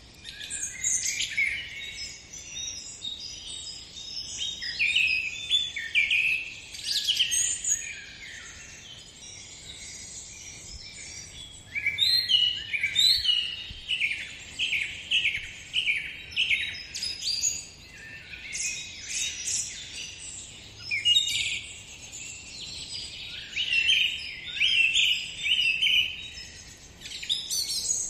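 Several birds singing, a steady stream of chirps and quick runs of repeated notes.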